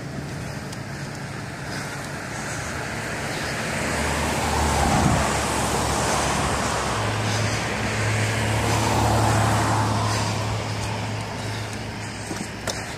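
Road traffic: cars passing on the road, their tyre and engine noise swelling and fading, with one pass peaking about five seconds in and another about nine seconds in.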